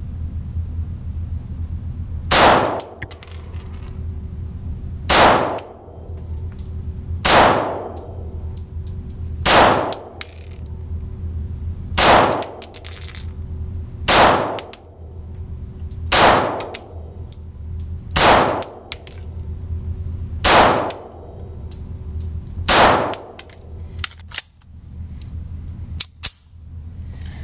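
Ruger MkIV 22/45 Lite .22 LR pistol fired ten times in slow, aimed single shots, about two to two and a half seconds apart. Each sharp crack rings on in the indoor range. A steady low hum runs underneath, and a few small clicks near the end come as the pistol is handled.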